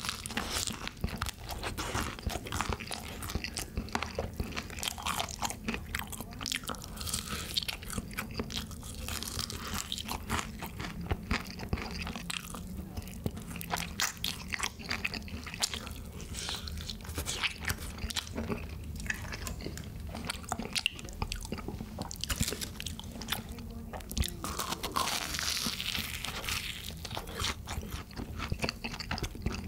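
Close-miked biting, crunching and chewing of crisp, cheese-seasoned fried chicken, in a dense irregular run of crunches. Near the end a fried cheese ball is bitten into and chewed.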